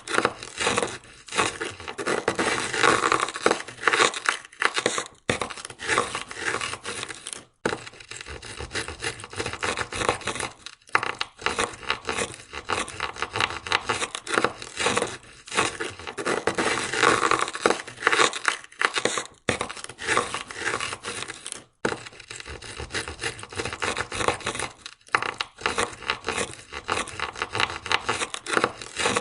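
An ice scraper scraping ice off a car window in quick repeated strokes, with short pauses every few seconds between runs of strokes.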